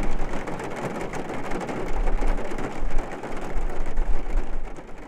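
Steady rain pattering on window glass, heard from indoors, easing off near the end.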